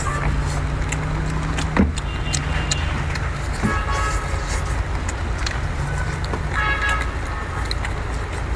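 Steady low engine rumble, with small clicks and mouth noises from someone eating shellfish.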